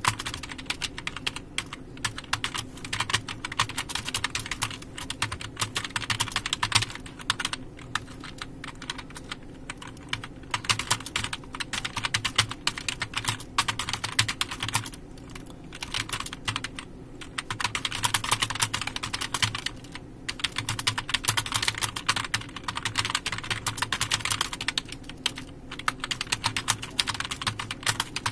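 Fast touch-typing on a computer keyboard: quick runs of key clicks broken by short pauses, over a faint steady low hum.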